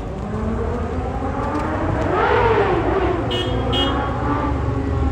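A motor vehicle passing on a city street over a steady traffic rumble, its engine pitch rising to a peak about two seconds in and then falling away. Two short high beeps sound about three seconds in.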